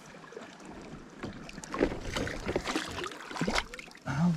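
Light water splashing and scattered small knocks around a small aluminum boat as a submerged tree branch is hauled up by hand. The knocks start about a second in and come irregularly.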